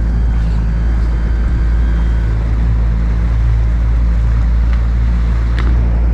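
Small open motorboat's outboard engine running steadily with a low hum as the boat moves, under heavy wind rumble on the microphone.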